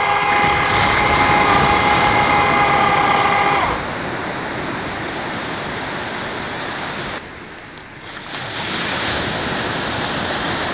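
Electric kontiki winch motor whining steadily as it hauls in the longline, stopping about three and a half seconds in. After that, a steady hiss of surf and wind.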